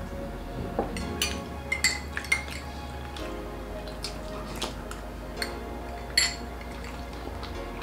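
Metal spoons clinking against small soup bowls as soup is spooned up: a few sharp clinks in the first half and a louder one about six seconds in, over background music.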